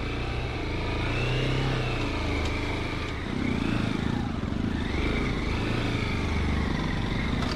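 Motorcycle engine running under way, its revs rising and falling.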